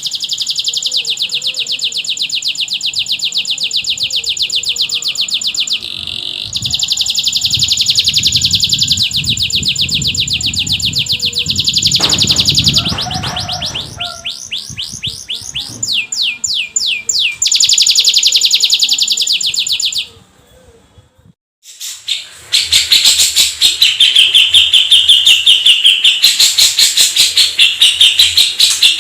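Domestic canary song: long, very fast rolling trills high in pitch, changing pace and speed several times. About two-thirds through it stops briefly, then a louder run of fast repeated notes follows.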